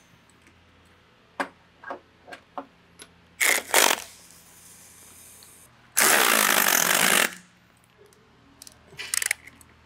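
Cordless power wrench run in bursts to tighten the nuts holding a spare tire onto its hitch-mounted carrier: a few light metal clicks, then two short bursts about three and a half seconds in, a longer run of about a second and a half at six seconds, and a short burst near nine seconds.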